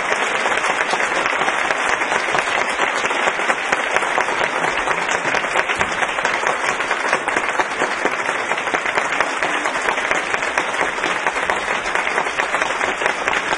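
Audience applauding steadily: a dense, even patter of many hands clapping, holding at the same level throughout.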